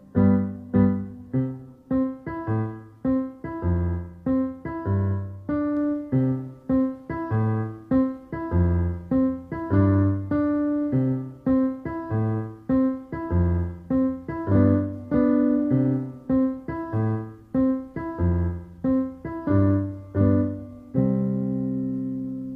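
Background piano music: a steady run of struck notes, ending on a held chord near the end.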